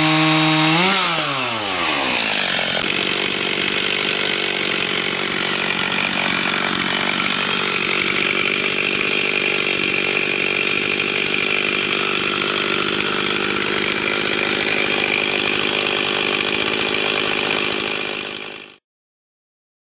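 Stihl MS 360 two-stroke chainsaw running at high revs. About a second in its pitch flicks up and then falls away, then it runs on steadily with a rougher, noisier sound until it cuts off abruptly near the end.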